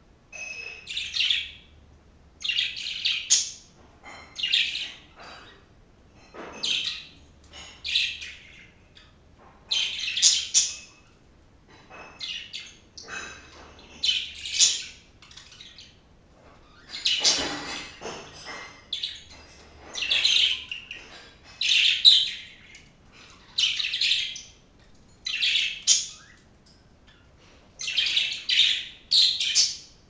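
Pet budgerigars chirping and chattering in short high-pitched bursts, one every second or two.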